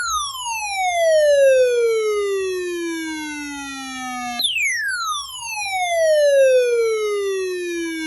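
Loud electronic alert tone, a pitched sweep falling steadily from high to low. It jumps back up about four and a half seconds in and falls again.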